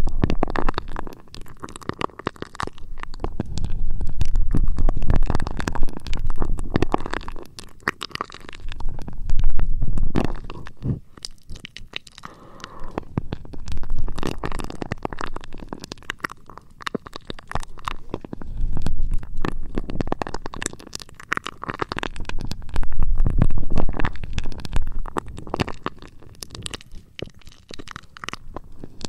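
Close-miked ASMR rubbing and scratching on a microphone, a muffled low rumble with fine crackle that swells and fades every four to five seconds.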